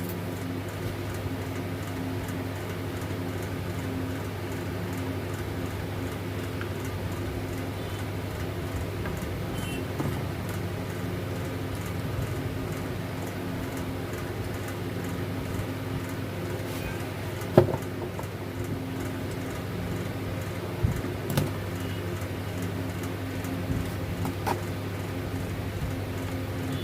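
A steady low machine hum with a few sharp clicks and taps, the loudest about two-thirds of the way through.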